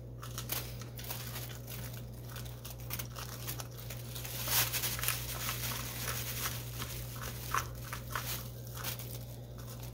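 A grapefruit spoon scraping the seeds and stringy pulp out of a halved raw butternut squash, an irregular run of short scrapes and crunches. Seeds drop onto a crinkling plastic bag.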